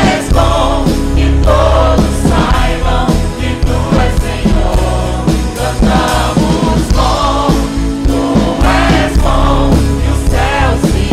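Portuguese-language worship song: voices singing over a band with a heavy bass.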